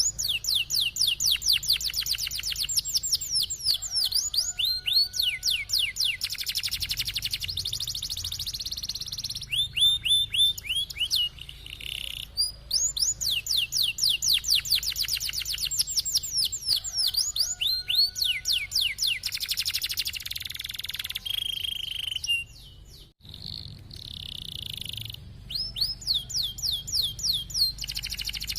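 Domestic canary singing: long rolling trills of very fast repeated notes, each sweeping downward in pitch, delivered in phrases a few seconds long with brief pauses between them.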